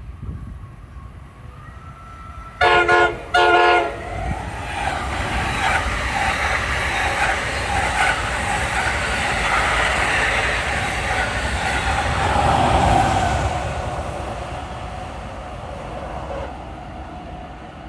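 An NJ Transit push-pull train gives a double horn salute: two short horn blasts about three seconds in, led by a Multilevel cab car. Then the train passes with wheel-and-rail noise that builds, peaks and fades away near the end.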